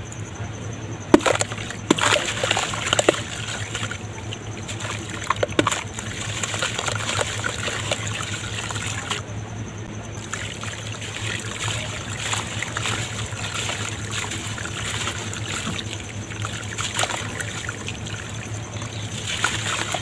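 Lumps of red dirt crumbling and dissolving in water: a steady fizzing, crackling trickle, with a few sharp plops or snaps in the first six seconds.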